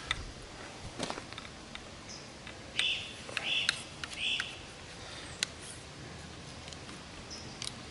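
Handling of a Steyr LP50 air pistol: scattered small clicks and taps, with three short high chirps in the middle.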